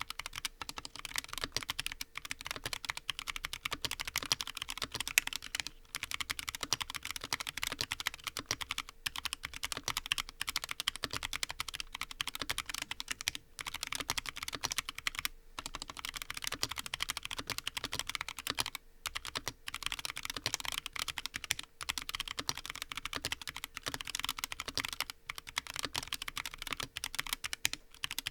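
Continuous fast typing on a Frusta Fundamental custom mechanical keyboard with a brass plate and lubed Huano White Blue switches: a dense clatter of keystrokes broken by short pauses every few seconds.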